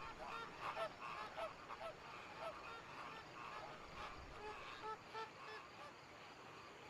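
Faint series of short honk-like animal calls, two or three a second, over a soft background hiss; the calls thin out near the end.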